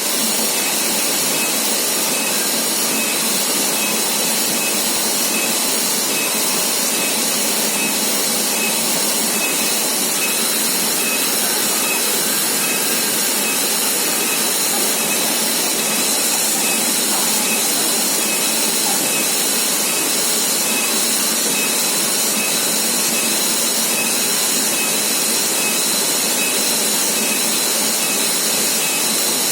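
Waterfall: a steady, even rush of falling water with a faint high note repeating steadily over it.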